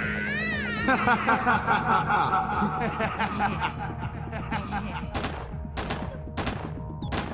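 A man's mocking cackling laugh, followed from about five seconds in by about four gunshot sound effects roughly 0.6 s apart, over background music.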